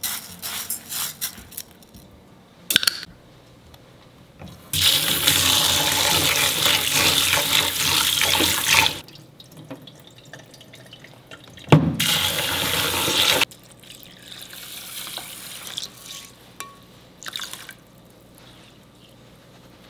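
Kitchen tap running into an enamel bowl as rice is rinsed at the sink: two loud runs of water, the first about four seconds long, the second about two, with the rinse water swished and tipped out between them and light clinks of the bowl.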